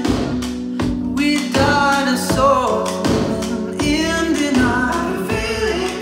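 Polk Reserve R200 bookshelf speakers playing a song with a sung vocal over a steady bass beat.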